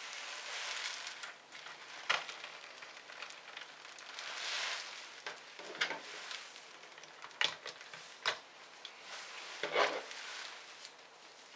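Laptop parts being handled and fitted by hand: a crackly rustle that swells now and then, with scattered sharp clicks and taps, several in the second half as the battery is set into the laptop's base.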